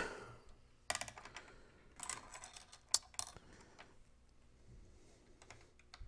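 Small plastic clicks and light rattling, clustered about one, two and three seconds in, as a small wire connector is plugged back into an opened RadioMaster TX16S transmitter and its wiring is handled.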